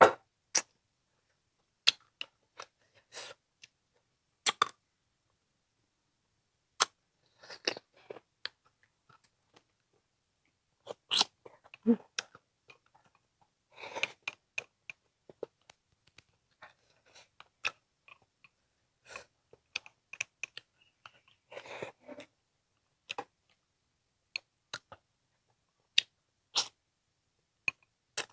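Close-up eating sounds of braised frog meat: bouts of wet chewing and mouth smacking, with scattered sharp clicks between them.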